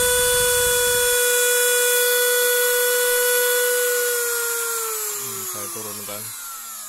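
Krisbow IRDGS1 mini rotary grinder running free at maximum speed with a steady high whine. About four seconds in the pitch slides down smoothly and the sound fades as the speed dial is turned down toward the lowest setting.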